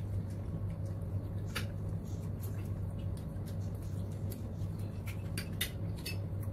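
Cutlery clinking against plates and a bowl during a meal: a handful of light, separate clicks and clinks over a steady low hum.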